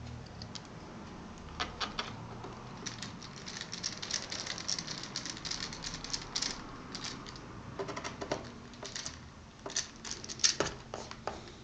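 Irregular light clicks and taps of small laptop parts and tools being handled, over a steady background hiss.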